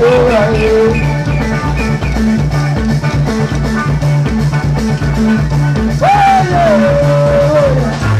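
Band music with a steady bass beat and a melody line that slides in pitch, heard near the start and again from about six seconds in.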